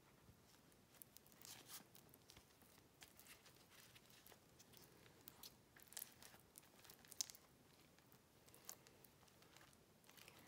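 Faint rustling and crinkling of paper, in scattered small crackles, as paper mache strips are handled and smoothed onto a form.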